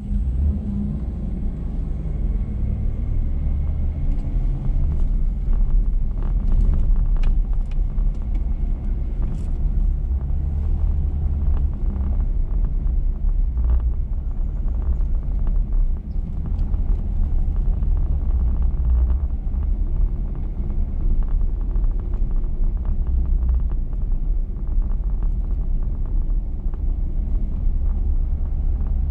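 2021 GMC Sierra X31 pickup driving on a sandy dirt road: a steady low rumble of engine and tyres, with scattered clicks and rattles, thickest in the first half.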